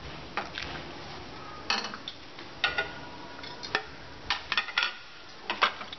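A steel ladle clinking against a stainless steel pot and a glass serving bowl: a string of sharp clinks, a few ringing briefly. Near the end come lighter knocks as a plastic plate is handled.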